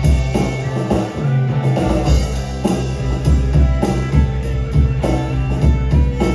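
Live rock band playing an instrumental passage: guitar, steady bass notes and a drum kit keeping the beat.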